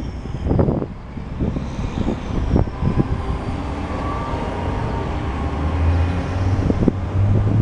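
Wind gusting on the microphone in low thumps, then a low, steady engine hum that builds over the last couple of seconds.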